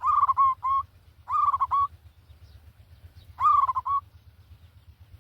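A bird calling: three short phrases of quick repeated pitched notes, each opening with a downward slide, a second or two apart, over a steady low hum.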